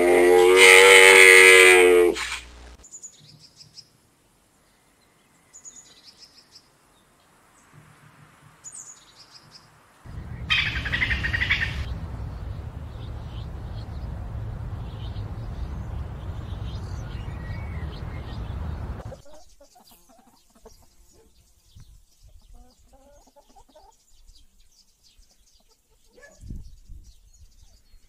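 Several animal calls one after another. A loud, drawn-out call opens the sequence, followed by scattered faint chirps. Later comes a stretch of steady rushing noise with a short burst of high chirping at its start.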